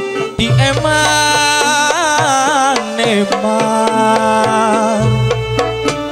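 Javanese campursari music: a wavering melody, sung with vibrato, over quick kendang hand-drum strokes.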